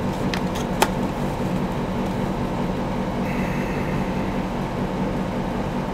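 Steady machine hum, with a few sharp clicks in the first second, one of them louder, from 3.5-inch floppy discs being handled.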